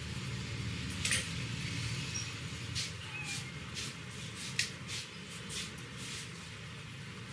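Head massage by hand: hair and scalp being rubbed, with a few sharp slaps or taps, the loudest about a second in and another near the middle.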